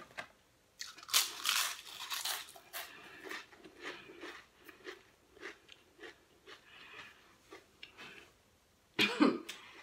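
Pringles potato crisps being crunched and chewed with a full mouth. A loud spell of crunching comes about a second in, followed by irregular softer chewing crunches, with a brief vocal noise near the end.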